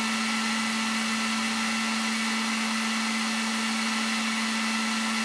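Makita DHG181 18V cordless heat gun running steadily on its highest air speed and heat setting: an even rush of air over a constant motor hum.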